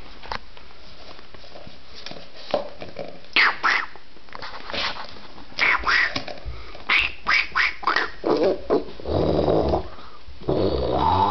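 Five-week-old Rhodesian Ridgeback puppies playing, with a string of short sharp scuffling noises. From about eight and a half seconds in, a puppy growls with a wavering pitch.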